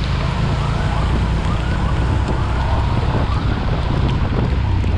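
Heavy rain and wind buffeting a moving action camera's microphone while riding a motorbike through a downpour, a steady loud rush with a deep rumble. A faint whine rises and falls several times underneath.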